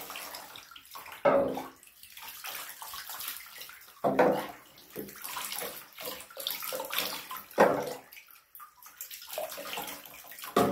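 Water poured from a cup over a wet puppy in a bathtub, splashing into the tub water in three louder pours about three seconds apart, with lighter trickling and sloshing between them.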